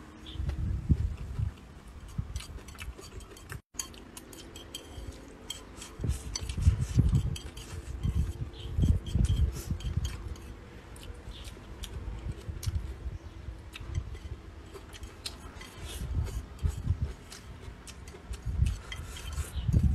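Chopsticks clicking and scraping against a ceramic plate, mixed with close chewing sounds, irregular throughout.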